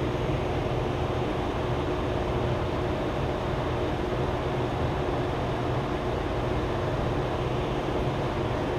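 Steady mechanical hum and airy hiss of a running fan, with a faint steady tone over it.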